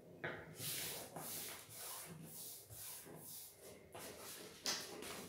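A sheet of A4 paper being folded by hand: fingers rub and press along the crease against a tabletop in a series of quick, papery rubbing strokes.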